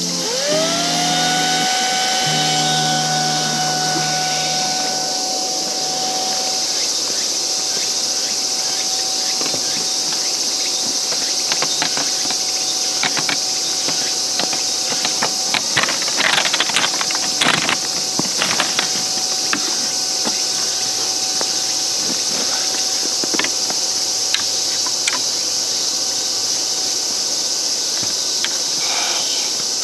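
Electric air pump of an inflatable camping mat switching on, its whine rising in pitch as the motor spins up, then running at a steady pitch. Insects buzz throughout, and a few knocks and clatters come around the middle.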